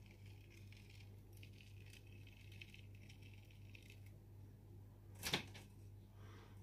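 Faint crackling of a silicone impression mat being peeled from a soap loaf, followed a little after five seconds in by one sharp knock, over a low steady hum.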